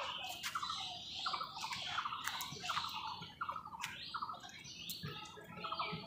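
House crows calling in a dense run of short, harsh caws, several a second, overlapping one another, with sharp clicks mixed in.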